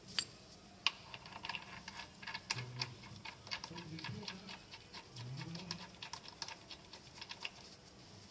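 Light, irregular metallic clicking and ticking from hand-tool work at the front of the engine, around the crankshaft sprocket.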